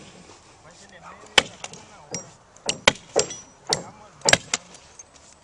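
Hammer blows while concrete slab forms are set, about half a dozen sharp, irregular strikes from about a second and a half in.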